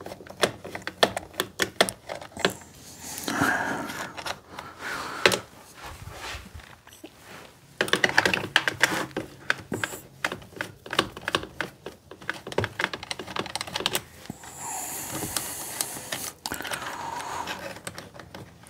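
Irregular clicks and taps of hand tools and small metal and plastic parts as a chainsaw carburetor is unscrewed and its gasket taken out, busiest about eight seconds in.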